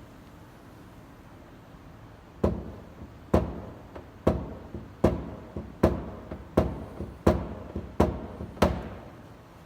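Hammer tapping a knockdown against a car door panel: about nine sharp taps a little under a second apart, each ringing briefly, knocking high spots flush to finish a paintless dent repair.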